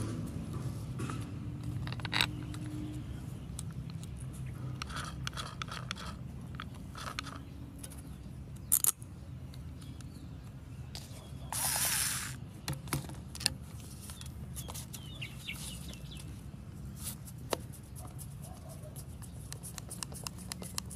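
Metal parts of an angle grinder being handled and fitted by hand: scattered clicks, light knocks and scrapes of the gear housing against the motor housing and the cardboard. About twelve seconds in, a louder rasp lasts about a second. Underneath is a low steady hum.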